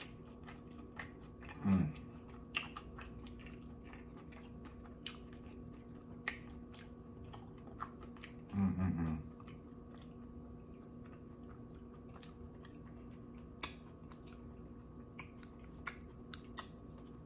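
Close-miked chewing of sushi, with wet mouth clicks and smacks scattered throughout. There is a short hum about two seconds in and another near nine seconds, over a faint steady hum.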